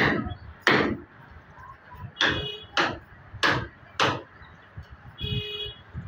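Metal hand tool driven down into a hard floor, six sharp strikes in two uneven groups, each with a short ring.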